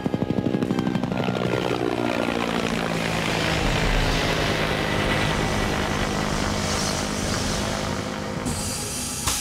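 Helicopter rotor sound: fast, regular blade thumping at first, then a pass-by whose pitch falls over a couple of seconds and settles into a steady, loud rotor and engine noise.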